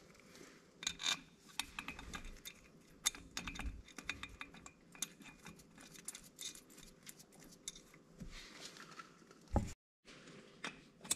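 Light metallic clicks and clinks of steel mounting bolts being handled and fitted by hand into a starter motor's mounting ears on an ATV engine. A thump near the end, followed by a brief cut-out.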